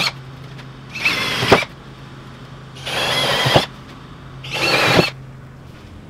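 Cordless drill boring bolt holes through plywood in short bursts. There are three runs of half a second to a second each, with the tail of another right at the start.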